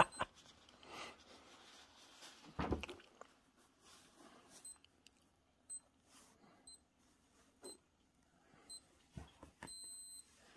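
Faint electronic alarm beeping: short high beeps about once a second, starting about halfway through and lengthening into longer beeps near the end. A brief scuffle is heard a few seconds earlier.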